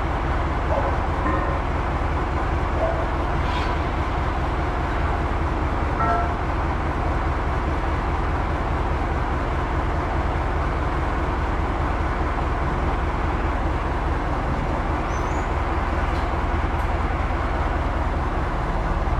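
Tractor diesel engine running steadily at idle, heard close up from the rear of the tractor, with a couple of faint short clinks in the first few seconds.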